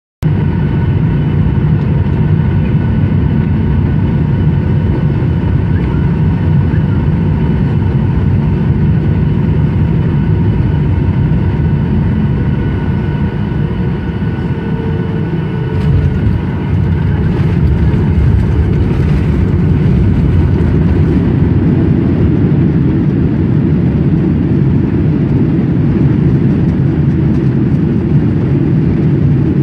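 Cabin noise in a Boeing 737-900ER during a landing in rain: the CFM56-7B engines and the airflow give a steady, loud low rumble with a few steady tones above it.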